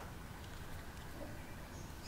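Small brass nut being screwed by hand onto a threaded brass spindle, giving only faint scraping of the threads over a low steady background noise.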